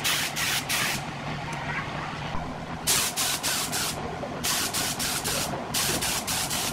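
Compressed-air paint spray gun spraying in rapid short hisses, about three a second, in groups broken by short pauses, as black paint is applied in quick passes. A steady low hum runs underneath.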